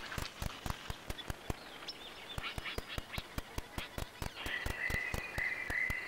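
Outdoor natural ambience: a quick run of sharp clicks throughout, with short bird chirps a couple of seconds in and a held, warbling whistled bird call in the last second and a half.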